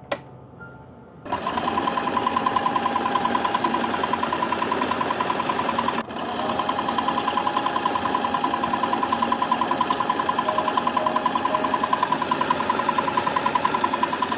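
Singer 8082 electric sewing machine running, its motor whining steadily under a rapid, even stitching rhythm. It starts about a second in, stops for a moment about six seconds in, then runs again until near the end.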